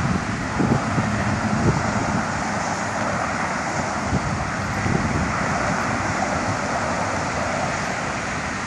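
Storm wind blowing, buffeting the microphone with irregular low thumps over a steady rushing noise.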